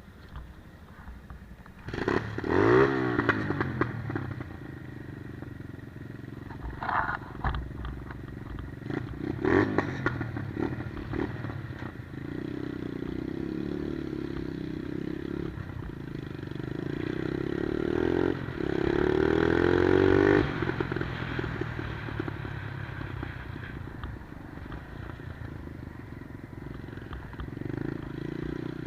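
Monkey-style minibike's 110cc single-cylinder engine running and revving as the bike is ridden. Its pitch swells and falls several times: hard revs about two seconds in, again near ten seconds, and the loudest run at about eighteen to twenty seconds, after which it settles to a lower, steadier note.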